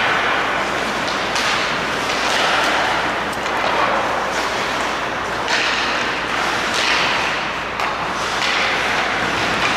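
Ice hockey play: skate blades scraping and carving the ice in repeated short swooshes, with occasional sharp clicks of sticks and puck, in a large echoing rink.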